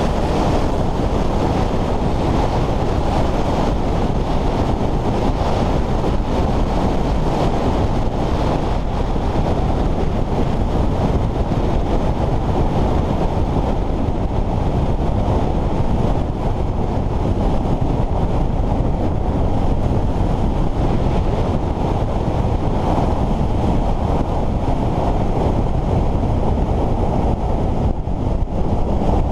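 Steady, heavy wind noise on the camera microphone of a Suzuki GSX-S750 motorcycle riding at speed.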